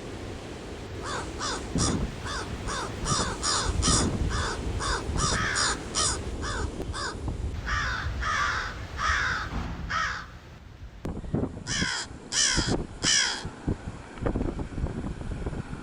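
Crow cawing in a rapid series of short caws, about two a second, then several longer, harsher caws, a brief pause, and three loud caws near the end, over a low background rumble.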